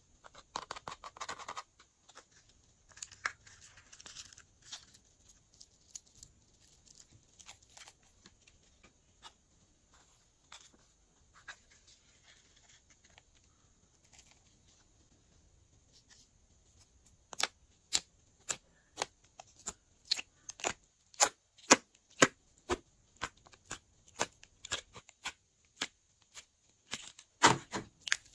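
Glossy slime being mixed: sticky crackles at first, then a run of sharp clicks and pops, about two a second, through the second half.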